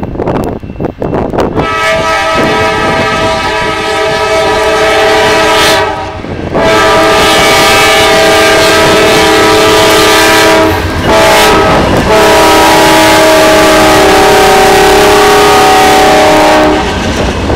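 Norfolk Southern GE Dash 9-40CW freight locomotives sounding their multi-note air horn in several long blasts as they pass close by. The engines and wheels rumble underneath.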